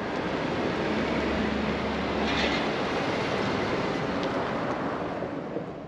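Steady rushing noise with a low rumble, swelling at the start and fading out near the end.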